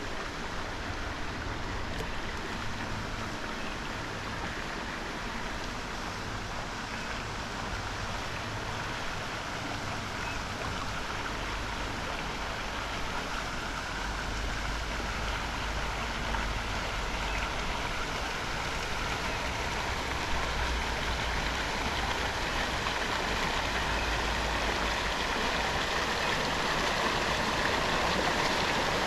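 Steady rush and splash of lake water along a moving kayak, with a low rumble underneath; it grows slightly louder toward the end.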